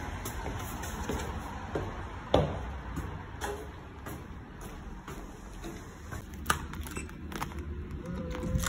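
Footsteps climbing a staircase with bag and umbrella handling noise and a few scattered light knocks; near the end, keys on a metal key ring clink at a door's lever handle.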